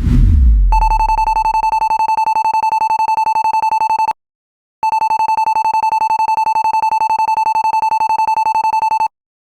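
A deep low boom, then an alarm ringing in two long bursts of about three and a half and four seconds, each a steady high rapid-pulsing ring, with a brief silence between them. In context it is the school fire alarm going off.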